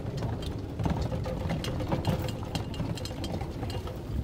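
Golf cart driving along a paved cart path: a steady low running noise from its drive and tyres, with small rattles and clicks from the cart's body.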